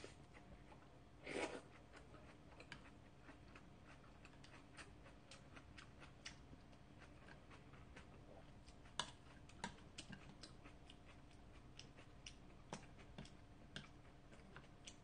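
Faint eating sounds: chewing, with scattered light clicks of a wooden spoon and chopsticks against dishes, and one louder short noisy sound about a second and a half in.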